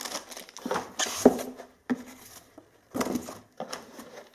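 Hands lifting small accessories out of a foam-lined cardboard box and setting them down on a table: a series of short rustles and light knocks, the sharpest a little over a second in.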